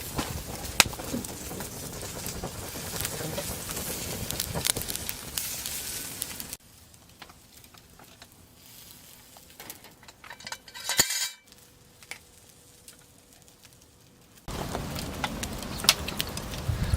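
Camp cooking sounds: a dense crackling sizzle full of small clicks, with utensils and dishes clinking. It cuts off suddenly to a quieter stretch holding a single brief ringing metal clink, then returns just as suddenly.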